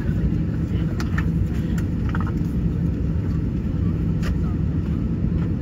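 Steady low rumble and hum of a Boeing 737 airliner and its tow tug on the apron, with a few faint clicks.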